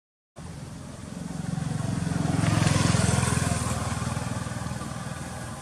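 A motorbike passing by: its engine drone swells to a peak a few seconds in, then fades away. A split-second dropout to silence comes right at the start.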